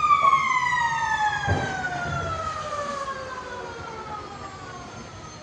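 Blasting warning siren winding down: its steady pitch starts falling at once and keeps gliding lower while fading, as a motor-driven siren does when it coasts to a stop after being switched off. A low thud about one and a half seconds in.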